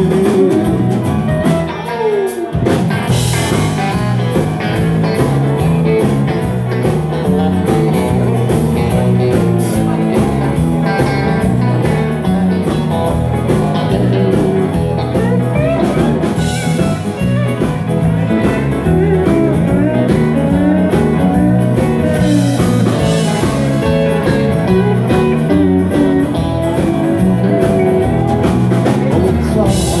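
Live band playing a rock and roll number with guitar and a stepping bass line, with a singer.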